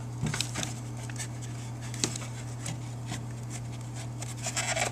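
A few scattered light clicks and rubs of the Suzuki Sidekick side mirror's parts being worked loose by hand, with more of them near the end, over a steady low hum.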